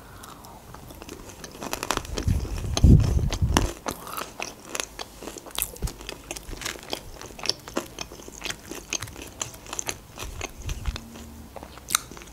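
Close-miked crunching bites and chewing of chicken strips with a crispy coating of crushed potato chips and cereal flakes: many sharp crunches in quick succession, heaviest and deepest about two to four seconds in.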